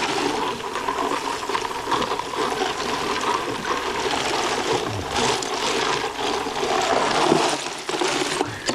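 Salt-brined mullet frying on a hot Blackstone griddle in bacon grease: a loud, steady sizzle full of crackling pops, which drops away suddenly near the end.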